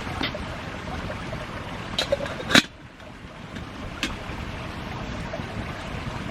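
Wood campfire burning: a steady rushing hiss broken by a few sharp snaps and pops. The loudest snap comes about two and a half seconds in, after which the rushing briefly dies down and then builds again.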